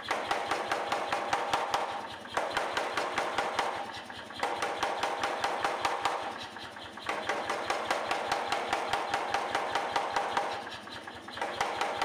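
Power hammer pounding a hot stainless steel fork blank in rapid, even blows, forging in just behind the tines to flare them into a U shape. The blows come in four runs with brief pauses, and the hammer's motor hums throughout.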